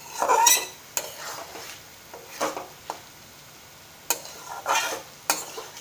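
A spatula stirring and scraping a thick snail curry around a metal kadai on a gas stove, with about seven separate strokes at an uneven pace.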